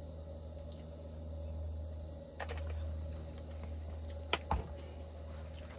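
A few sharp knocks and clicks of cooking things being handled and set down on a wooden camp table, one about halfway through and two close together near the end, over a steady low hum.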